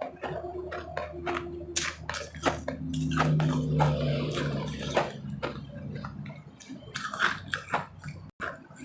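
Mouth crunching and chewing refrozen powdery snow-ice, with repeated sharp, irregular crunches of bites.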